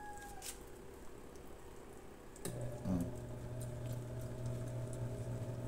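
Faint clicks and pattering of a puppy moving and sniffing about on a tiled floor, with a steady low hum coming in about halfway through.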